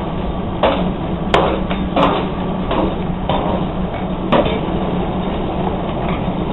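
Hand hammer striking hot meteoric iron on an anvil: about six blows roughly two-thirds of a second apart, stopping a little after four seconds in, over a steady low hum.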